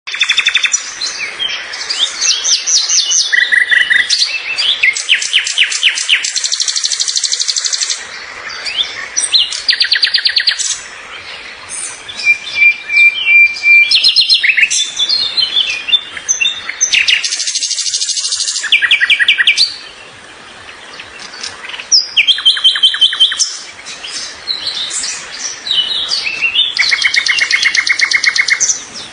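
Songbird singing: loud chirps and fast trills of rapidly repeated high notes, in phrases of a few seconds with short pauses between them.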